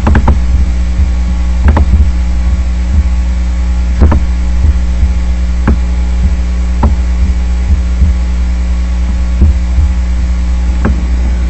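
Loud steady electrical hum with a low buzz and a row of steady overtones, broken by about ten sharp clicks at irregular intervals.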